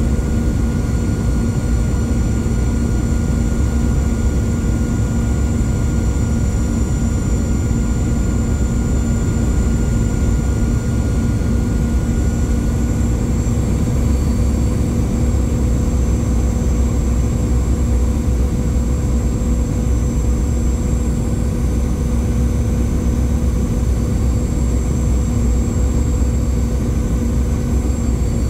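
Boeing 717's rear-mounted Rolls-Royce BR715 turbofan engines heard from inside the cabin during the approach descent: a steady drone with a low hum and a high whine over a rumble. One of the mid tones fades out about halfway through.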